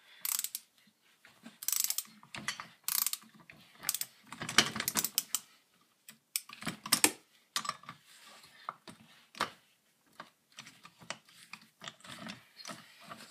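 Irregular metallic clicks and scrapes of a screwdriver and loose parts as a Poulan 1800 Woodshark chainsaw engine is taken apart.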